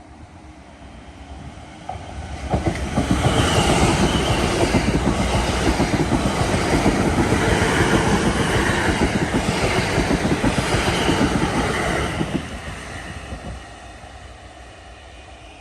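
A train passing close by at speed, wheels rattling on the rails. The sound builds about two seconds in, stays loud for about ten seconds, then dies away.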